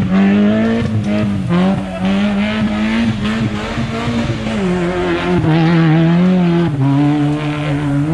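Lifted Mazda Miata kart's engine running hard off-road, with the revs holding and then dropping in two steps, about halfway through and near the end.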